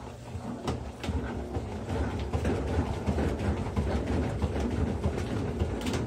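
Electrolux LAI17 17 kg top-load washing machine drum spinning up, a low rumble that grows louder about a second in, with irregular knocking and clatter. The load of towels is slightly unbalanced.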